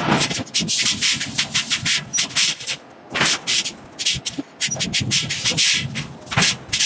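Hot iron block on a forging press: a loud burst right at the start as the press ram leaves the block, then irregular scraping and crackling noises in uneven bursts.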